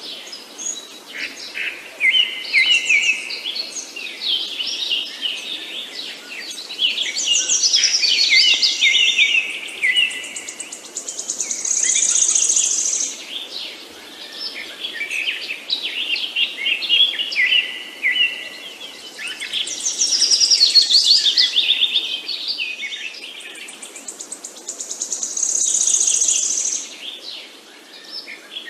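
A chorus of several songbirds chirping and singing over one another, with quick trills and repeated short phrases swelling and fading every few seconds. A high buzzy trill stands out twice, about twelve seconds in and again near the end.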